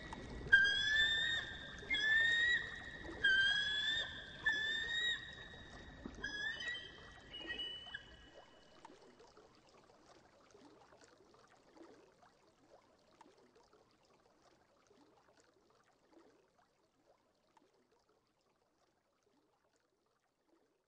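Golden eagle calling: about six short, high cries, each rising slightly in pitch, over the first eight seconds. The calls and the background hiss stop about eight seconds in, leaving faint crackles that fade to silence.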